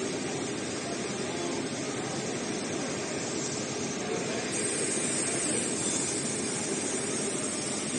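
Richpeace CNC heating-wire sewing machine running, its sewing head stitching in a steady, dense mechanical drone. A high hiss comes up a little about halfway through.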